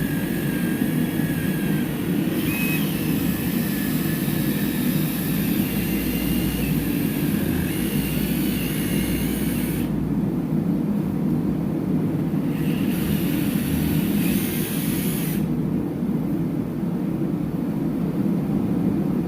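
Mac Tools 2-inch sander-polisher spinning a wire brush against the inside race of an excavator final-drive bearing, cleaning it back to bare metal for a weld bead. It runs with a high whine for about ten seconds, stops, then runs again for a few seconds, over a steady low drone.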